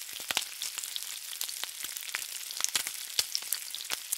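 Food frying in hot oil in a pan: a steady sizzle with frequent sharp pops.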